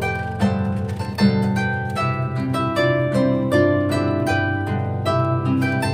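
Solo harp background music: a melody of plucked notes over held bass notes.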